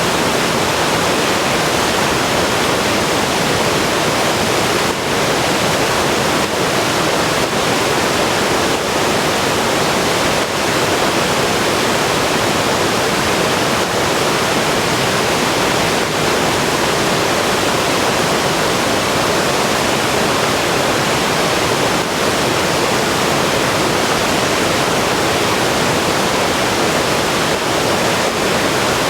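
River water rushing steadily over rocks, a loud, even rush with no pauses.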